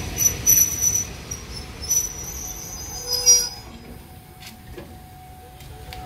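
Passenger train's carriage wheels and brakes squealing in high steady tones over a low rumble as it slows to a stop. The squeal and rumble fade out about three and a half seconds in.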